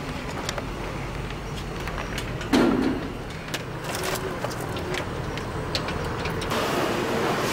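Street traffic running steadily, with scattered metallic clicks and rattles as a steel house door and its lock are worked by hand. There is a short low bump about two and a half seconds in, and the traffic grows louder near the end.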